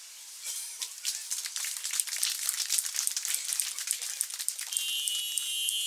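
Street background noise, mostly traffic, high-pass filtered and boosted until it is a thin crackling hiss with no low end. About five seconds in, a steady high whine with several pitches starts over it.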